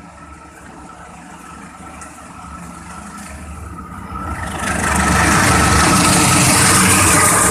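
A CC 203 diesel-electric locomotive approaches at speed, its engine rumble growing steadily louder. About four and a half seconds in, it turns into a loud rush as the train passes close.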